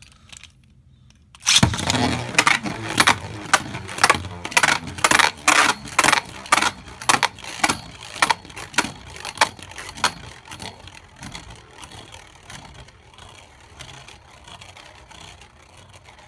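Roar Fafnir Beyblade top launched into a plastic stadium about a second and a half in, then spinning and clacking against the stadium, with sharp hits a couple of times a second for several seconds before it settles into a quieter steady spinning rattle.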